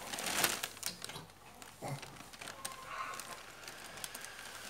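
Pencil scratching on notebook paper in short strokes, busiest in the first half second and again about two seconds in.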